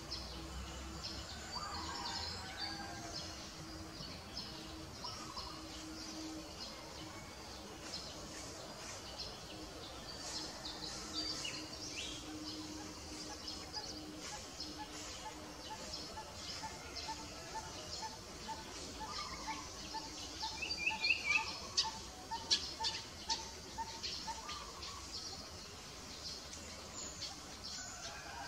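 Wild birds chirping and calling in forest. A steady stream of short high chirps runs throughout, and in the second half one low note repeats about twice a second for several seconds.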